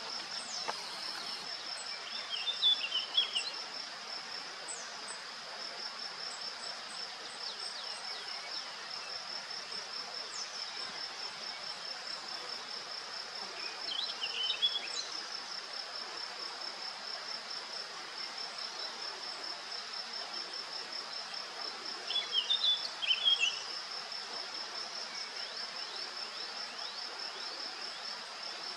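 Steady, high-pitched insect trill of rapid, even pulses, typical of a cricket or bush-cricket. Short bursts of chirps rise over it three times, a few seconds in, near the middle and about two-thirds through; these are the loudest sounds.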